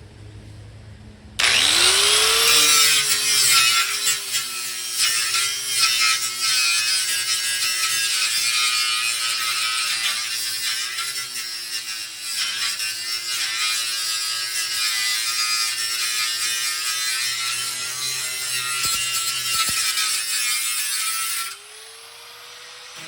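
Angle grinder spinning up with a rising whine, then grinding the leftover spot-weld metal off a steel truck bed floor panel: a steady harsh hiss over a motor whine that sags and recovers as it is pressed into the metal. Near the end it stops grinding and the whine fades as the disc spins down.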